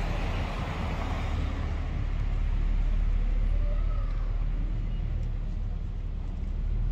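Steady low rumble of road traffic, with a faint short call near the middle.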